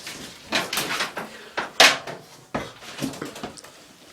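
Irregular knocks, bumps and short scraping sounds of things being handled and shifted, with one loud rasping scrape a little under two seconds in.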